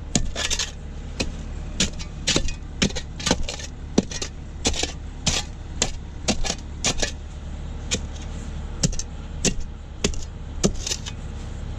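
Digging machine's engine running steadily while it digs footing holes, with frequent sharp metallic clanks and rattles from the digging gear.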